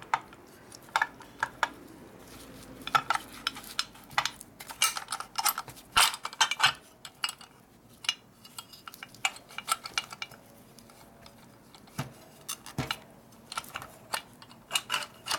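Irregular metallic clicks and clinks of steel shift forks and small parts being handled and fitted into a Borg Warner T5 transmission's shift cover, coming in short clusters.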